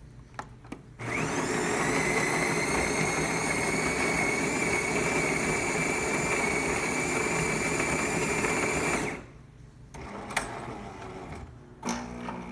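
Jura ENA 3 coffee machine's built-in grinder grinding beans for about eight seconds, a steady whirring whine that cuts off sharply, followed by a few clicks and, near the end, a lower humming as the machine moves on into brewing.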